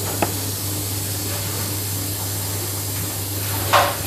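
Steady background hiss with a low hum. A light click comes just after the start, and a louder knock just before the end, as tomato pieces drop into a steel mixer jar and the jar is set down on the mixer base.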